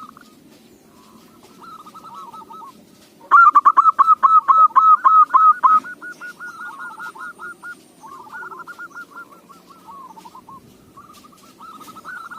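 Zebra doves (perkutut) cooing: repeated phrases of rapid, clipped coo notes. A loud, close phrase runs from about three to six seconds in, with quieter phrases before and after it.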